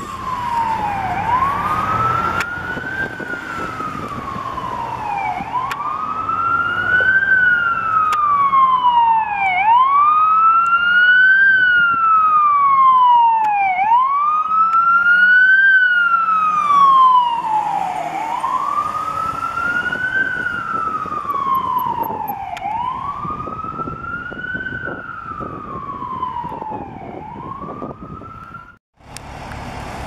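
Fire engine siren on a wail, its pitch rising and falling smoothly about once every four seconds, with the truck's engine running underneath. It cuts off abruptly near the end.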